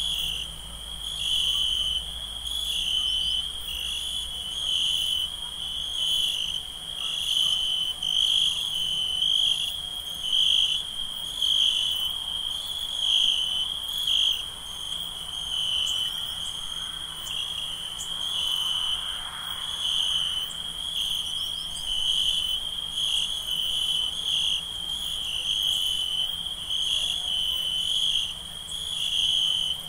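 A night chorus of crickets chirping steadily and without a break, a high, evenly pulsing trill.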